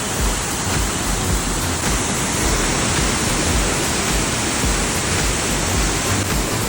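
Waterfall: water rushing steadily with a low rumble beneath.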